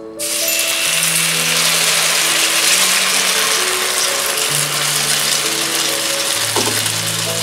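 Water poured into a hot, oiled frying pan of browned buns, sizzling and boiling hard in a loud, steady hiss that starts suddenly just after the beginning; this is the water that will steam the pan-fried buns. Quiet background music with sustained notes plays underneath.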